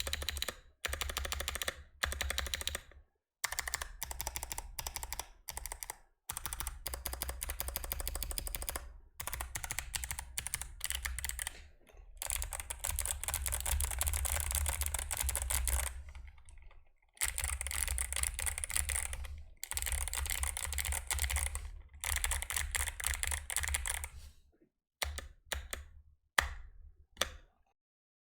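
Mechanical keyboard with Novelkeys x Kailh Box Jade clicky switches being typed on: fast runs of sharp clicks broken by short pauses, thinning to a few single key presses near the end.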